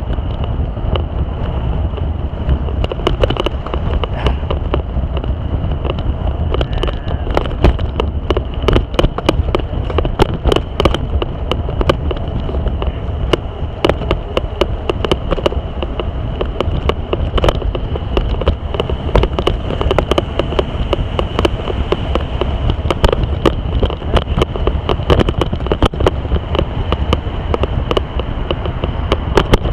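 Wind rumbling on the microphone, with frequent sharp knocks and rattles from a bicycle jolting over a rough, rocky road.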